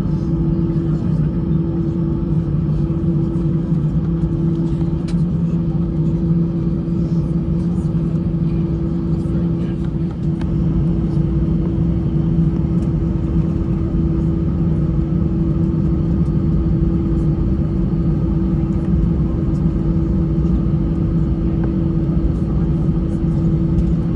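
Airbus A320 at idle power during taxi, heard inside the cabin: a steady low rumble with a constant hum, with a few faint clicks.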